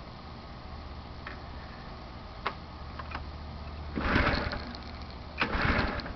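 Two yanks on the recoil pull-starter of a gas pressure washer's small engine, about a second and a half apart, each a short whir of the engine cranking over without firing. It is a cold start after winter storage with fogging oil in the cylinder, and the engine is not catching. A few light clicks come before the pulls.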